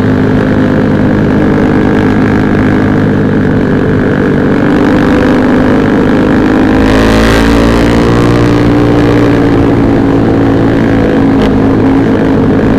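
Motorcycle engine running steadily at cruising speed, heard onboard with wind on the microphone. Its pitch rises a little and eases back in the middle, with a gust of wind about seven seconds in.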